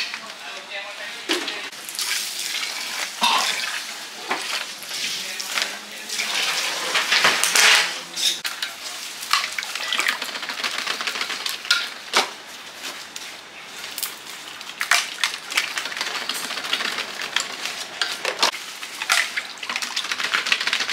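Kitchen clatter: utensils, dishes and pans knocking and clinking at irregular moments over a hiss, with voices in the background.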